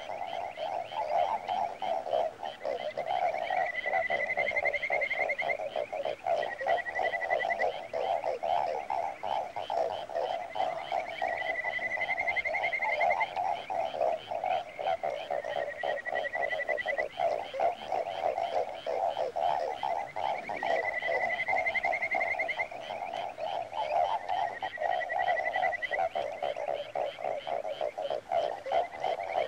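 Frog chorus: a dense, steady pulsing sound, with a higher trilled call of a second or two that rises slightly and repeats about every four seconds.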